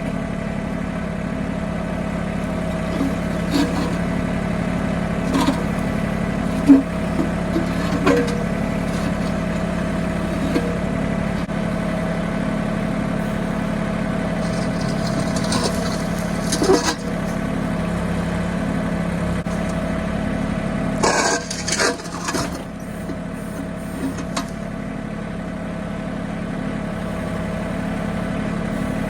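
Mahindra 1626 compact tractor's diesel engine running steadily while its backhoe digs, with scattered knocks and scrapes of the bucket against buried concrete. The sharpest knock comes about seven seconds in, and there is a short run of louder clattering a little past twenty seconds in.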